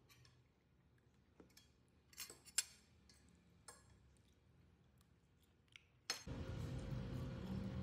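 Small clicks and light clinks of objects being handled. About six seconds in, a sharp click and then a steady whirring noise with a constant hum starts abruptly and keeps going.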